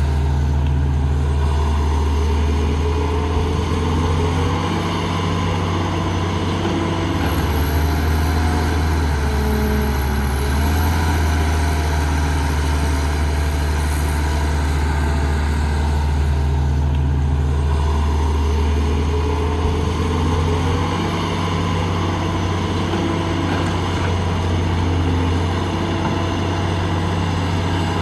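Heavy diesel engine of construction machinery running steadily with a deep drone, its pitch shifting a little now and then as the load changes, and a faint high whine coming and going above it.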